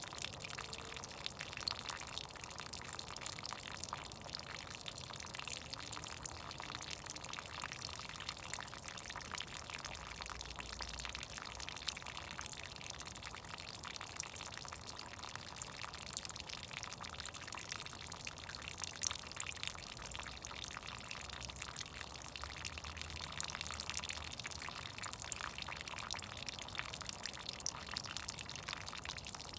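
Meltwater from melting snow trickling and dripping, with many small high drips and splashes over a steady run of water.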